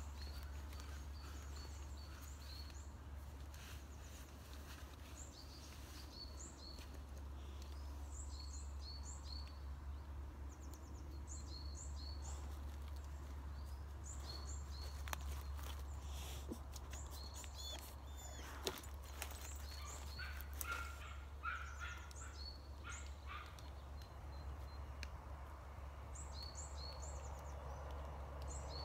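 Small woodland birds singing: many short, high chirps and trills repeating throughout, over a steady low hum. A few faint clicks and knocks come about two-thirds of the way through.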